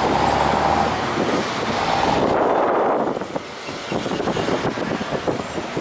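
Wind buffeting the microphone over the running engine of an open-top double-decker tour bus and the surrounding city traffic. The noise thins and dips briefly about three seconds in.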